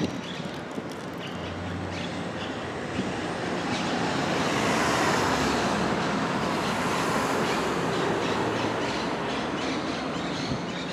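Rumble of a passing heavy vehicle with rattles and small clicks. It swells to its loudest about halfway through and eases off near the end.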